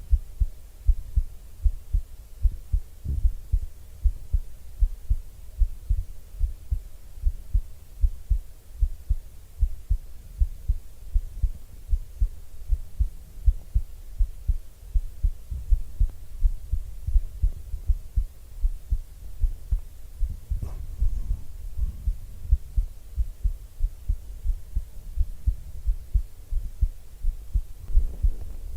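A person's heartbeat heard up close: a steady, even rhythm of low, soft thumps.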